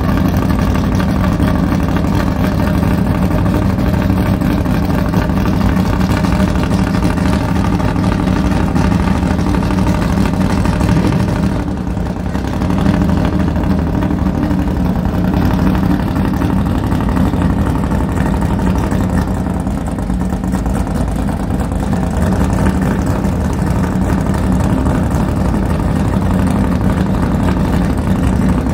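Drag car engine idling, a loud steady running note with a brief drop in level about twelve seconds in.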